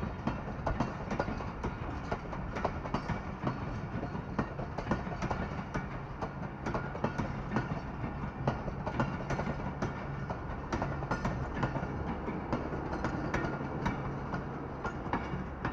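Pakistan Railways passenger coaches rolling past: steel wheels clicking irregularly over rail joints over a steady rumble. A steady low hum grows stronger in the second half as the train's generator power van goes by.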